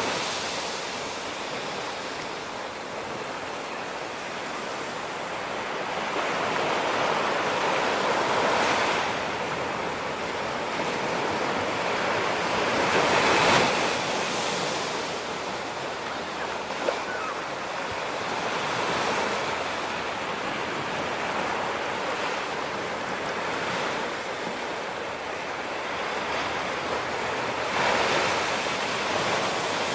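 Ocean surf breaking on a beach: a steady wash of rushing water that swells with each incoming wave, the biggest break about halfway through.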